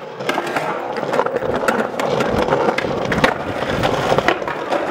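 Skateboard wheels rolling on concrete, with repeated clacks and scrapes of the board as a skater goes at a ledge, ending in a slam on the ground.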